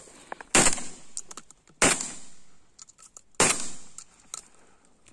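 Three shotgun shots fired at passing ducks, about a second and a half apart, each followed by a short fading echo.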